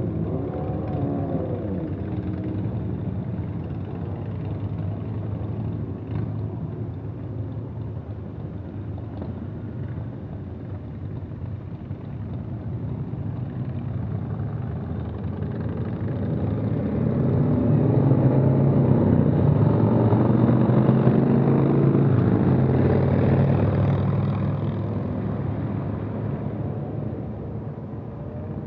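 Motor vehicles driving past on a winding two-lane road: one engine note sweeping down in pitch and fading at the start, then engines growing louder from about halfway, loudest for several seconds and easing off near the end.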